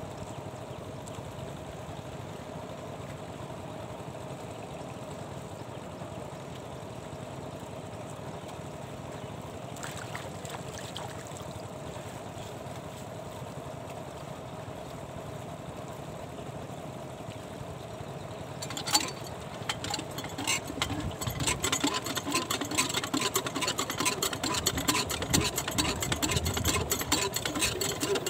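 Water poured from a plastic jerry can into a diesel irrigation pump to prime it, gurgling and splashing irregularly from about two-thirds of the way in. Before that, only a faint steady hum.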